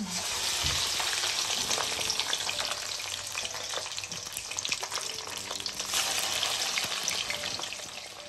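Thin-cut French fries frying in hot oil: a dense sizzle and crackle that starts suddenly as they go in and swells again about six seconds in.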